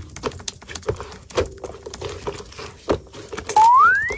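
Pink slime squeezed and stretched by hand, giving a run of sticky clicks and pops. About three and a half seconds in, a loud whistle-like tone glides upward for about half a second.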